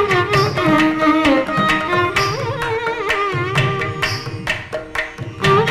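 Carnatic violin playing a thillana in raga Mohana Kalyani, the melody sliding and bending between notes over regular drum strokes.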